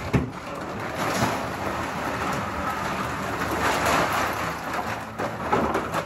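Dry animal feed pouring from a sack into a plastic storage bin: a steady rushing hiss like rain, with a knock just as it begins.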